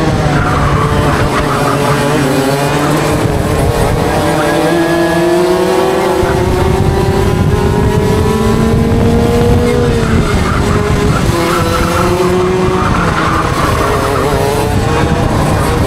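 Two 125cc two-stroke racing kart engines at full throttle, the onboard kart and a second kart close behind. The engine note climbs steadily for several seconds along the straight, drops sharply when the throttle comes off about ten seconds in, and then rises and falls again through the corners.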